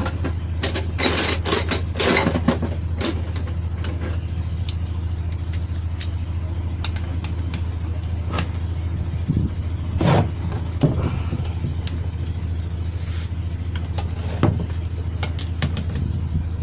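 A steady low engine-like hum runs throughout. Over it come scattered sharp clicks and knocks, the louder ones near the start and about ten and fourteen seconds in, as metal tools and parts are handled.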